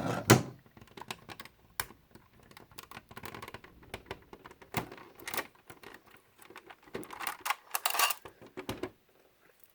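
Irregular clicks and taps of plastic and diecast parts as a 1:18 scale Maisto Bugatti Chiron model car is handled and worked open, with a denser run of clicking about seven to eight seconds in.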